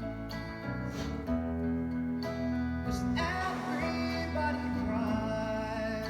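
A recorded song playing: a singing voice over instrumental accompaniment with long held notes.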